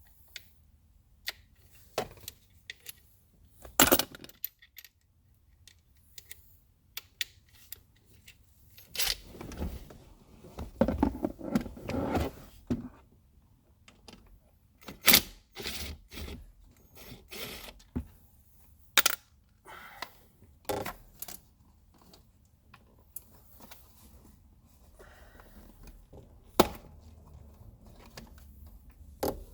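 Hands working a seat belt buckle and its cable into a car seat: scattered sharp clicks, metal clinks and knocks, with a denser stretch of rattling and rustling a third of the way in.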